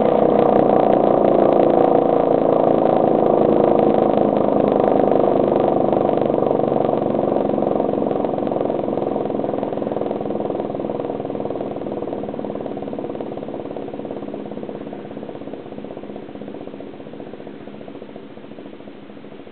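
Castle Castings air raid siren winding down: its wail slowly sinks in pitch and fades steadily as the rotor slows.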